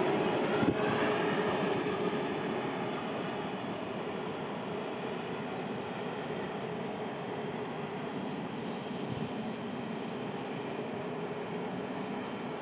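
Electric train running away along the track. Its wheel-on-rail rumble fades over the first few seconds into a steady, distant hum.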